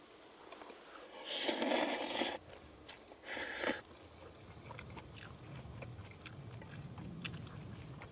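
Two loud, short, noisy bursts, the first about a second long and the second briefer, then faint scattered crackles over a low rumble.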